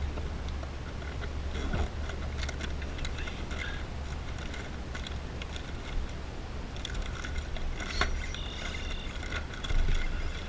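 Spinning reel being cranked on a lure retrieve, giving light scattered clicks and ticks over a steady low rumble.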